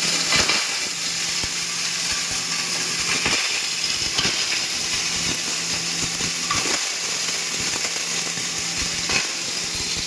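A 5 hp coconut grinder machine running: a steady motor hum under a dense, hissing grind, with irregular clicks and knocks throughout.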